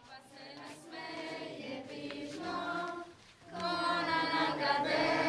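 A group of children singing together, led by young leaders. The singing is fairly quiet at first, breaks off briefly about three seconds in, then comes back louder.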